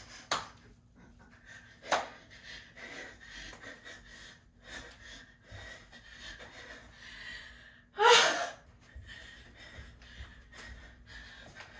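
A woman breathing hard and gasping from the exertion of dancing. There are sharp gasps about a third of a second in and near two seconds, and a louder, longer gasp about eight seconds in.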